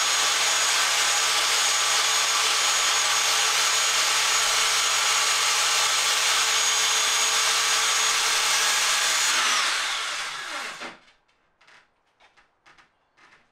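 Corded circular saw running and ripping a sheet of plywood along a guide track, a steady cutting whine. About nine and a half seconds in the trigger is released and the motor winds down, falling in pitch, followed by a few light knocks.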